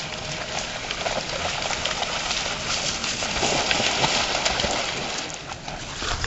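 Dobermans splashing as they wade and swim into the shallow edge of a pond, a rough, continuous splashing that grows louder around the middle.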